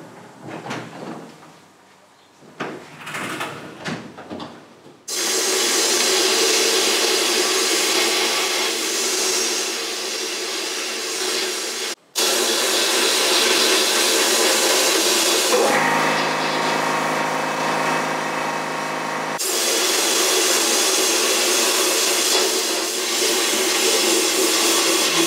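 A few knocks and clatters, then from about five seconds in an abrasive-blasting cabinet's blast gun hissing steadily as it blasts bare aluminium Harley Sportster fork yokes. The hiss cuts out for an instant near the middle, and for a few seconds after it a lower, steady hum shows through.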